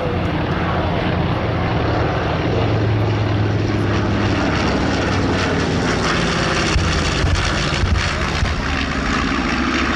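Piston-engined propeller warbirds flying low past the crowd, a loud steady engine and propeller drone whose pitch falls over the first few seconds as they go by.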